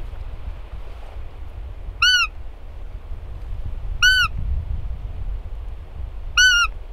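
Hand-held roe deer call blown in three short, high-pitched peeps about two seconds apart, each rising then falling in pitch: the fiep call of a roe doe, imitated to draw a rutting roebuck in.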